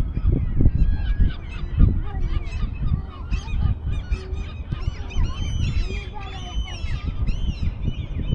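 A flock of waterfowl calling, many short overlapping calls at once, with a low rumble underneath.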